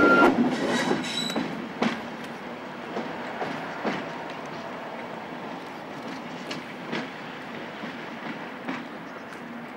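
Class 37 diesel locomotive and its coaches running away over jointed track, the train's rumble fading as it recedes, with a scatter of sharp wheel clicks over rail joints and pointwork.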